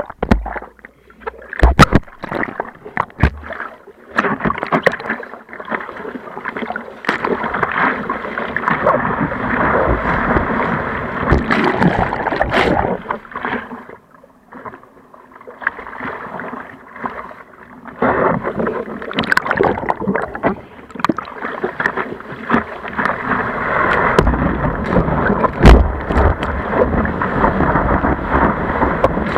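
Sea water splashing and rushing against an action camera's waterproof case in the surf, muffled, with frequent knocks of water and spray on the case. The sound is quieter for a moment about halfway through, then loud again during the ride.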